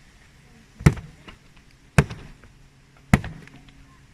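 Axe chopping into a log: three sharp strikes about a second apart.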